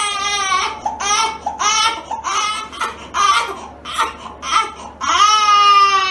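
Newborn baby crying: a long wail, then a run of short cries, then another long wail that falls in pitch near the end.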